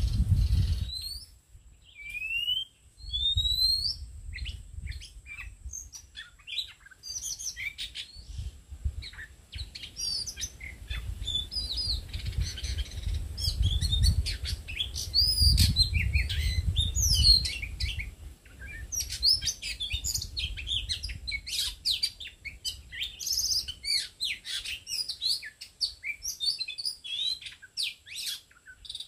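Oriental magpie-robin song: a dense run of varied whistles, rising and falling glides and chirps, busiest in the second half. A low rumble sits under the song through the first half.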